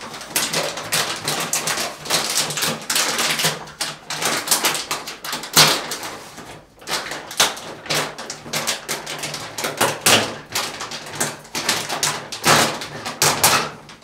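A flour bag crinkling and crackling as hands tear and pull it open, in irregular crackly bursts that are loudest about five and a half seconds in, around ten seconds, and near the end.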